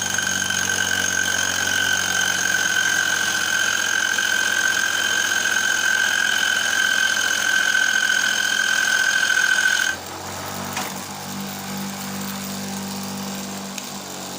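Electric drill running at high speed, spinning a stainless steel bolt head against a grinding machine to grind the stamped numbers off: a steady high whine that cuts off suddenly about ten seconds in. The grinding machine keeps running after that with a lower, quieter hum.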